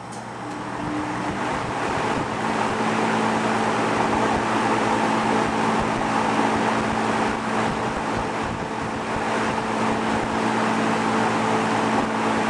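Vintage Duralux box fan running, a steady rush of air over a low motor hum, getting louder over the first two seconds. Its shaft bearings are freshly cleaned and oiled, and it runs smoothly without vibration.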